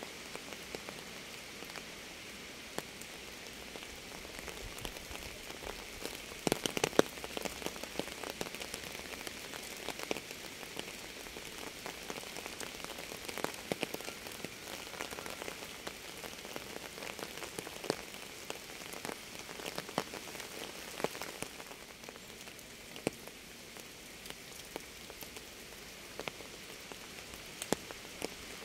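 Steady rain with the ticks of individual drops scattered through it, a cluster of louder drop hits about seven seconds in.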